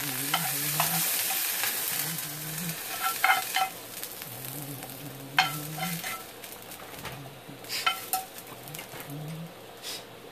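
Green onions sizzling in hot oil as they are tipped from a pan onto steamed lobster, with a spatula scraping and clicking against the pan. The sizzle is loudest at first and fades after about three seconds, leaving scattered clicks.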